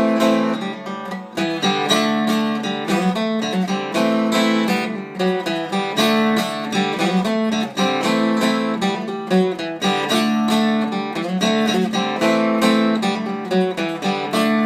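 Acoustic guitar strummed in a steady rhythmic chord pattern, an instrumental passage with no singing.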